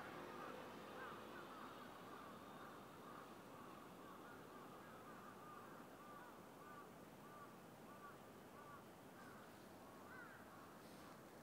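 Faint run of short, quick animal calls, a few each second, over low outdoor background noise.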